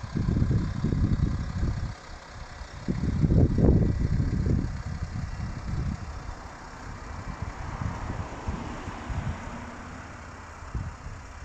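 Wind on the microphone in irregular low rumbles, loudest in the first two seconds and again about three to five seconds in, over the steady idle of a Range Rover Sport's 3.0 SDV6 V6 diesel engine.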